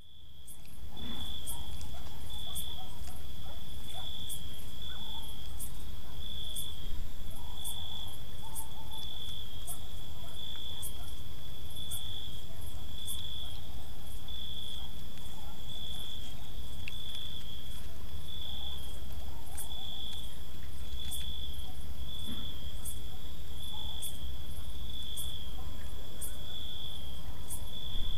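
Night-time countryside ambience: crickets chirping in a steady pulsing rhythm, with a second, higher ticking insect call and a low rumble underneath. It fades in during the first second.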